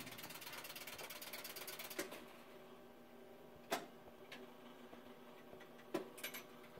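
Wurlitzer Model 2200 jukebox's record-changer mechanism working: a fast ratcheting whir that stops with a click about two seconds in, then a few separate mechanical clicks over a low steady motor hum.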